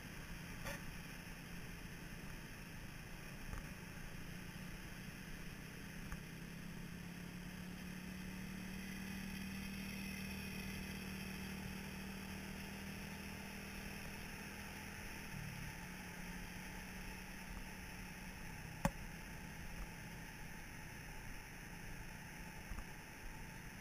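Small sand buggy's engine running with a steady hum. It grows a little louder as the buggy comes close about halfway through, then drops in pitch a few seconds later. There is one sharp click near the end.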